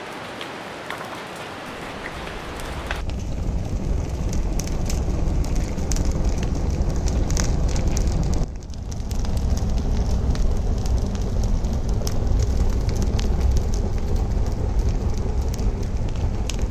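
Dry-twig and leaf fire crackling and popping, with a low rushing roar of flames under the crackles. It gets much louder about three seconds in, cuts out for a moment past the middle, then carries on.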